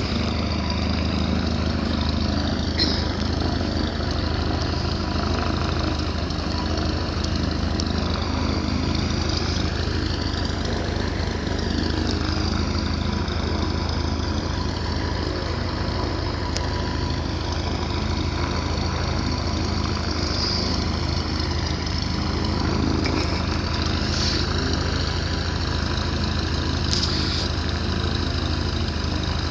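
An engine running at a steady speed, a constant low drone that holds unchanged throughout.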